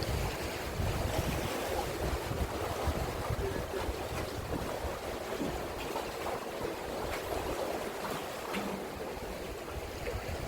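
Strong wind buffeting the microphone in gusts, over the steady wash of sea waves on the shore.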